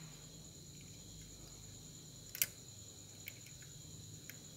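A power transistor being fitted into an amplifier circuit board by hand: a few faint clicks, the clearest about two and a half seconds in, over a faint steady hum and high-pitched whine.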